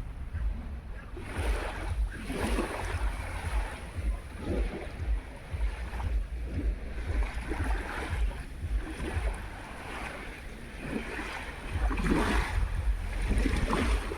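Sea of Azov waves washing onto the shore every few seconds, with wind buffeting the microphone in a steady low rumble.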